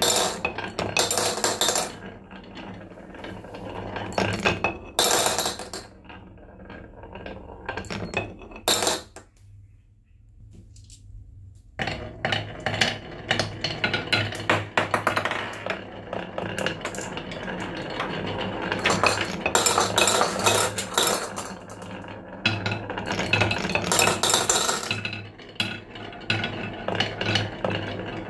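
Glass marbles rolling and clattering down a wooden block marble run, clicking against the wooden track and each other, and dropping into a plastic bowl. There is a lull of a couple of seconds about a third of the way in, then the clatter resumes thickly.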